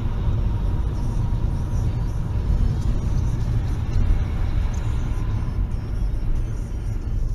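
Steady road and engine rumble from inside a moving car, with music playing on the car radio.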